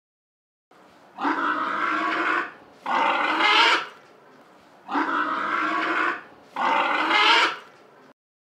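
Two pigs squealing: four loud, harsh squeals of about a second each, coming in two pairs, starting about a second in.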